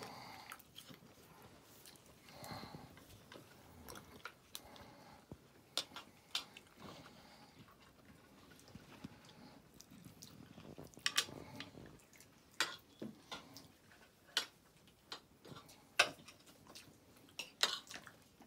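Quiet room sound with scattered sharp clicks and small knocks, irregular and a second or more apart, over a faint murmur in the first half.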